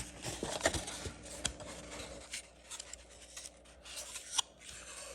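Scratchy rubbing and scraping of the packaging of a Pokémon card mystery box being handled and opened, with a few sharp clicks.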